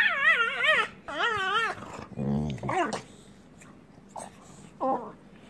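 Dogs play-fighting: two wavering, high-pitched whining calls, then a short low growl a little over two seconds in and a brief yelp near the end.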